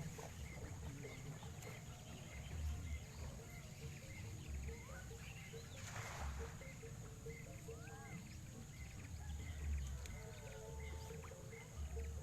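Outdoor ambience of wild animals: a short call repeated about once a second over a steady high insect-like drone, with a few gliding bird-like calls and wind rumble on the microphone. A brief hiss stands out about six seconds in.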